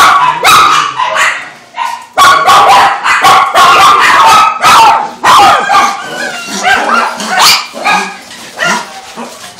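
Several caged shelter dogs barking, many short overlapping barks in quick succession, the barking thinning out a little near the end.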